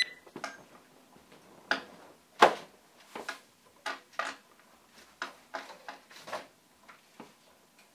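A plastic binder and its paper pages being handled on a countertop: a scattered series of light knocks, clicks and rustles, the loudest knock about two and a half seconds in.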